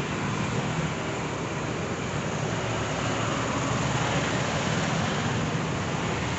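A JR 205 series electric commuter train running away along the track: a steady rolling noise of wheels on rails.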